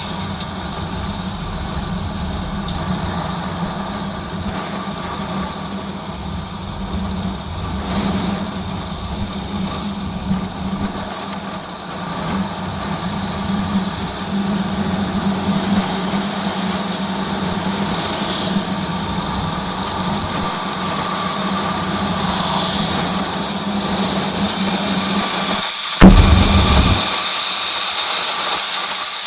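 Single-cylinder motorcycle engine running steadily on the road. Near the end comes a sharp thump, the loudest moment, after which the low rumble drops away.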